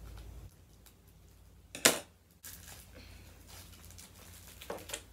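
Scissors cutting through a cookie: one sharp crunch about two seconds in and a smaller one near the end, with faint rustling between.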